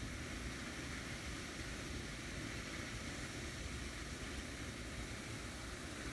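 Steady outdoor background noise: an even low rumble with a hiss over it, without a break.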